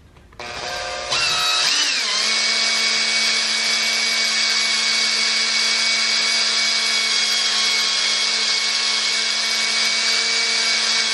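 Electric drill spinning a brass screw loaded with valve grinding compound against a 9mm rifle barrel's muzzle, lapping the crown. The motor runs up in steps over the first two seconds, its pitch dipping and settling, then holds a steady whine.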